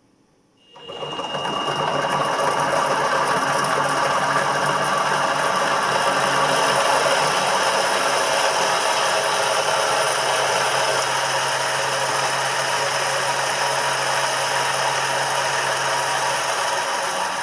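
Mini X2 milling machine spindle running under its motor, a loud steady mechanical whir with a whine of several steady tones through its gear drive. The gears are worn, and this deterioration is what makes the noise. Its low hum drops slightly in pitch about ten seconds in.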